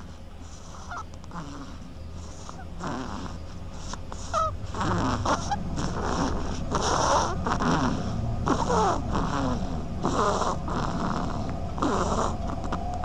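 An animal snoring in short, rapid breaths, about one or two a second, some of them carrying squeaky, whistling pitch glides. The snores grow louder over the first half, over a steady low hum.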